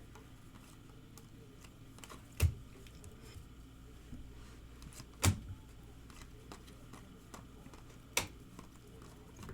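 Trading cards being handled on a table: faint small clicks and rustles, with three sharp taps about three seconds apart.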